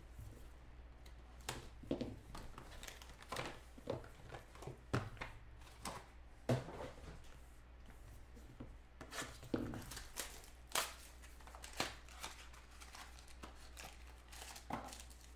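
Plastic wrap crinkling and scattered taps and clicks as a sealed box of Topps Museum Collection football cards is opened and its small cardboard pack boxes are lifted out and handled.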